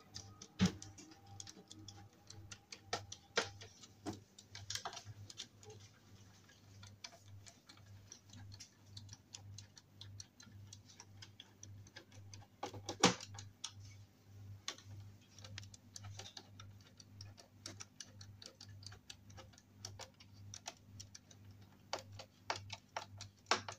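Hand screwdriver driving screws into a wooden cot frame: a run of light, irregular clicks and ticks as the screws are tightened, with a few sharper knocks, the loudest about halfway. A faint low hum runs underneath.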